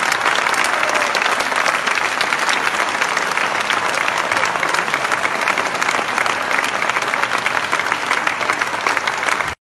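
Audience applauding: dense, steady clapping from a crowd, which cuts off abruptly near the end.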